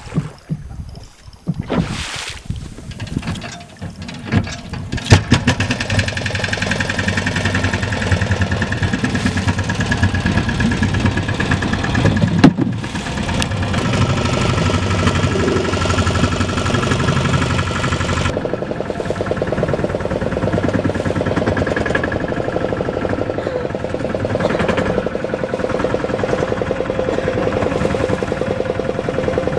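Small fishing boat's outboard motor started after a few knocks and clatters, catching about five seconds in and then running steadily.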